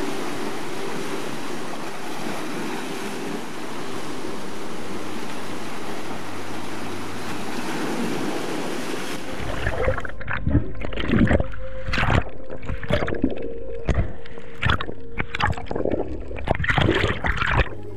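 Rough sea surf washing over rocks, with wind on the microphone. About nine seconds in the sound switches to muffled underwater sound: a low rumble with gurgling and irregular knocks.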